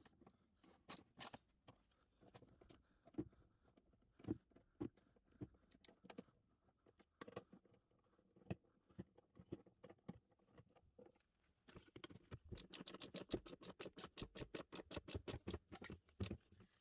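Socket ratchet wrench with an extension turning a bolt in a scooter's plastic under-seat storage bin. Scattered clicks and knocks at first, then about twelve seconds in a fast, even run of ratchet clicks, about nine a second, for some three and a half seconds.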